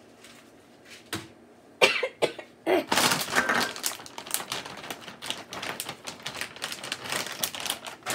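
Kitchen handling noises: a few sharp knocks about two seconds in, then a long run of quick clicks and rustling as spice containers and a seasoning packet are handled.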